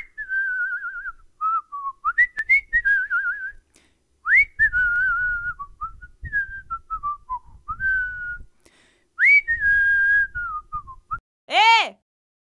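A person whistling a wandering tune, with warbling held notes, several quick upward swoops and short pauses between phrases. Near the end comes a short tone that rises and falls in pitch.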